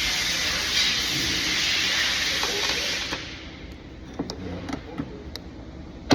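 Steady hiss that cuts off about halfway through, followed by a few short clicks and taps of parts being handled while a door lock actuator is fitted into a car door. The sharpest click comes near the end.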